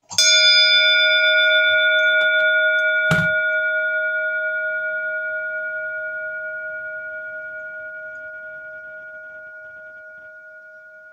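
A bell struck once, ringing a clear metallic tone with several overtones that dies away slowly with a gentle wobble. A soft knock about three seconds in.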